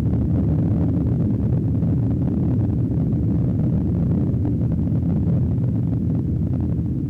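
A loud, steady, dense low rumble from an animated film's soundtrack, with no clear melody.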